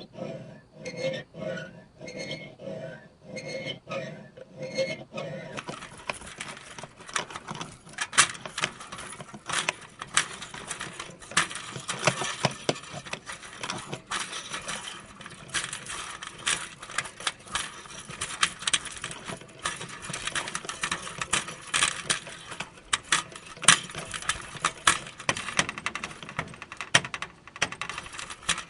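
Screen door's coiled steel spring being abused: for the first five seconds or so it twangs in a steady rhythm, about two a second, each with a ringing tone; then it rattles and clinks in a dense, irregular stream of metallic clicks and scrapes.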